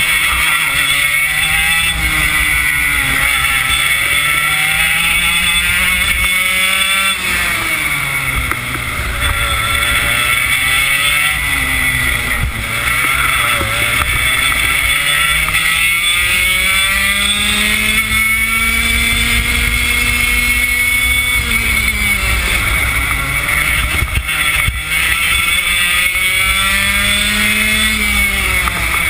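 Yamaha KT100 two-stroke single-cylinder kart engine at racing speed, heard from on board the kart. Its pitch climbs steadily along the straights and drops sharply several times as the driver lifts for corners.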